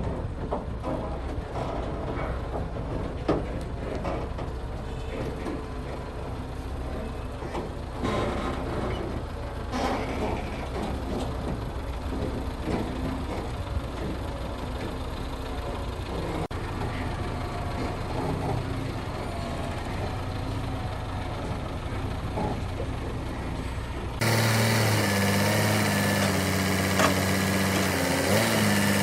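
Heavy machinery running with a steady low hum and scattered knocks and clatters. About 24 seconds in, it cuts abruptly to a louder engine running steadily.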